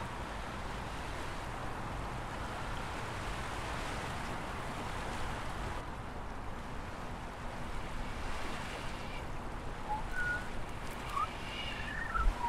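A steady rushing noise, with a few short chirps near the end.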